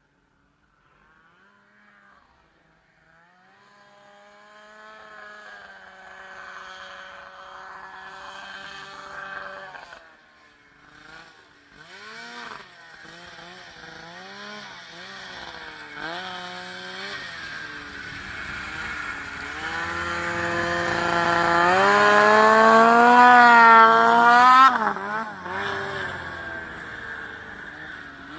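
Snowmobile engine running, its pitch rising and falling with the throttle. It grows louder over most of the stretch, is loudest a little over 20 seconds in, then falls away suddenly.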